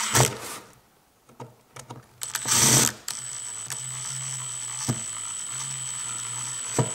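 Screws being driven back into a metal tape measure's case: a few clicks and a short rattling burst, then a steady mechanical hum for the last four seconds, broken by a couple of clicks.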